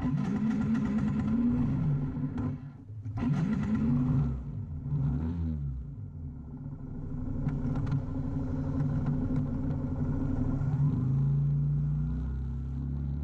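Yamaha Virago XV250's V-twin engine running, its pitch rising and falling several times as it is revved, then settling into a steady note near the end.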